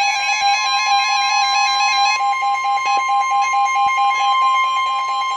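Emergency alert attention tones: a steady high tone with a second, rapidly pulsing tone that alternates in pitch over it, signalling that a severe weather warning is about to be broadcast.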